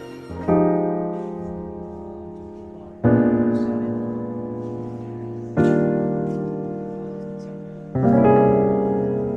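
Background piano music: slow, sustained chords struck about every two and a half seconds, each ringing and fading away.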